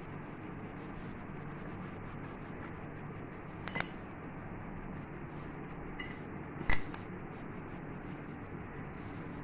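Steel lid, used as a round dough cutter, clinking sharply against a wooden rolling board twice, about four and seven seconds in, over a steady low background hiss.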